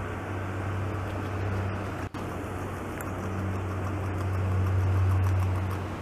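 A vehicle engine running steadily as a low hum, growing louder about four seconds in and easing off near the end.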